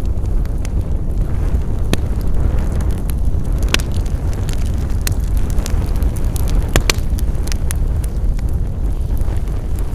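Wood fire crackling: sharp pops and snaps at irregular intervals over a steady low rumble.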